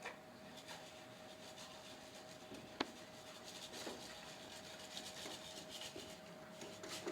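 Faint scratching and rustling, with one sharp click about three seconds in, over a faint steady hum.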